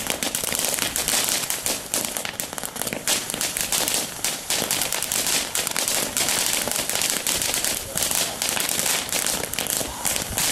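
Fireworks crackling: a dense, unbroken rush of tiny pops that keeps an even level throughout.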